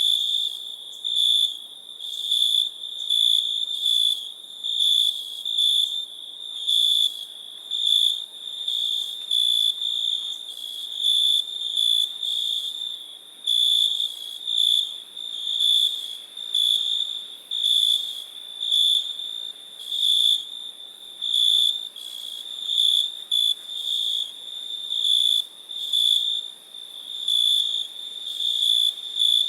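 Crickets chirping: one high, thin tone that swells in regular pulses, about one to two a second, without a break.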